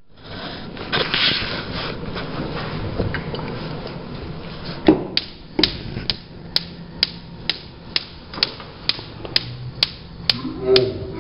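Wolf gas cooktop's spark igniter ticking sharply and evenly, about twice a second, and still clicking after the burner has lit: the igniter stays on after ignition. The ticking starts about five seconds in, just after a loud knock as the burner knob is turned.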